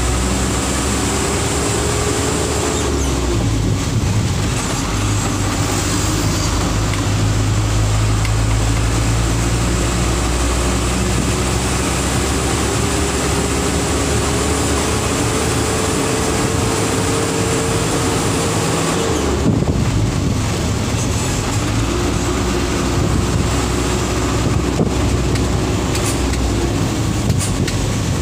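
Light truck's diesel engine and road noise heard from inside the cab while driving. The engine note climbs slowly as the truck gathers speed, drops sharply about two-thirds of the way through as the throttle eases or a gear changes, then runs steady.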